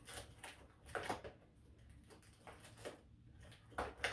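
Fingers picking at and tearing open the perforated cardboard door of a chocolate advent calendar: a few short, faint scrapes and tears, the loudest about a second in and near the end.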